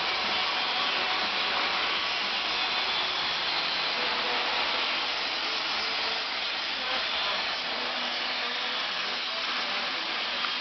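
Steady rushing noise of a running motor-driven machine, even throughout with no hammer strikes.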